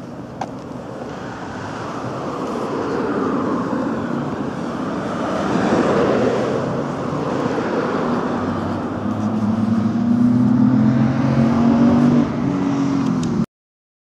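Road traffic: cars passing close by, with tyre noise swelling to a peak about six seconds in. Then a car engine hum grows louder until the sound cuts off abruptly near the end.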